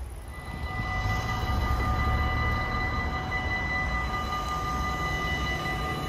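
Railway level crossing warning bell ringing steadily as the crossing's barriers come down, with a car driving over the crossing.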